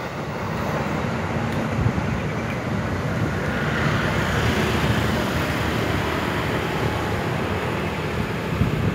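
Steady rumble and rail noise of a KRL commuter electric train running away along the tracks, mixed with a background traffic hum; a brighter hiss swells around the middle.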